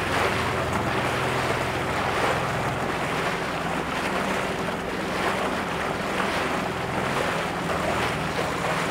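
Wind buffeting the microphone and water rushing, over the steady low hum of a boat engine.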